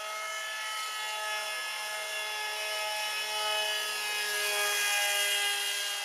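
Electric motor and propeller of an RC foam F-22 model jet whining in flight, a steady pitched whine that steps a little in pitch a few times and grows louder about five seconds in.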